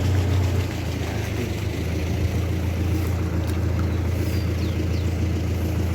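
Vehicle engine running steadily at idle, with a low hum that drops slightly in level under a second in and then holds.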